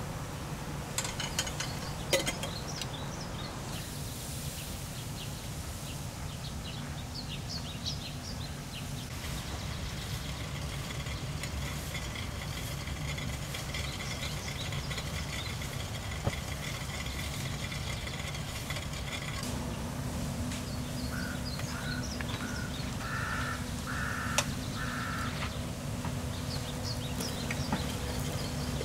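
Outdoor birdsong ambience: crows caw several times in quick succession about two-thirds of the way through, with small birds chirping now and then and a steady low rumble underneath. A steady high buzz runs through the middle stretch.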